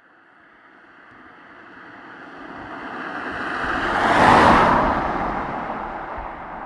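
A car passing by: its tyre and engine noise grows steadily as it approaches, is loudest about four seconds in, then fades as it drives away.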